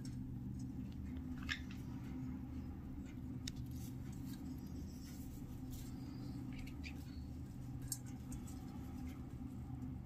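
Sun conures picking and chewing at a woven fibre nest toy with their beaks and claws: sparse small clicks and scratches, the clearest about a second and a half in and near eight seconds. Under them runs a steady low hum.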